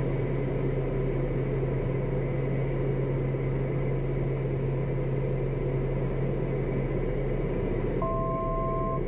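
Cabin noise of a Piper M500 single-engine turboprop in cruise: a steady drone with a strong low hum. Near the end, an electronic cockpit beep sounds for about a second.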